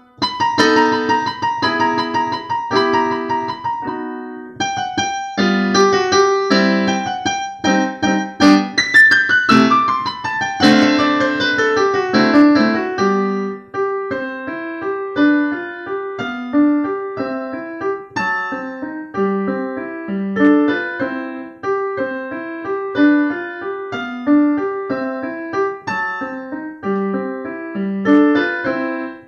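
Solo classical piece played on a digital piano, many quick notes over a lower accompaniment. A short pause about four seconds in, then a fast downward run of notes near the middle.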